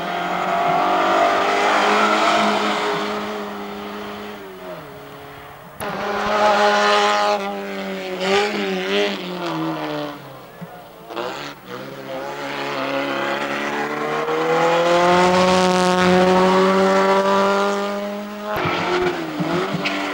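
Race car engines accelerating hard up a hill-climb course, the pitch rising through each gear and dropping back at each gear change. There are three loud stretches, about 2, 7 and 16 seconds in, with quieter gaps between them.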